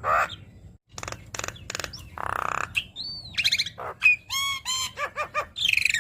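Javan myna (jalak kebo) singing a fast, varied chattering song: whistled glides, clicks, rattling trills and harsh rasping notes, full of mimicked phrases, with a brief pause about a second in.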